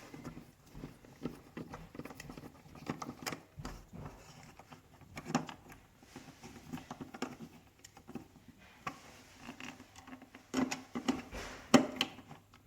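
Scattered small clicks and scrapes of a hand screwdriver turning a terminal screw on a doorbell chime and of thin doorbell wires being handled, with louder clicks about two seconds before the end.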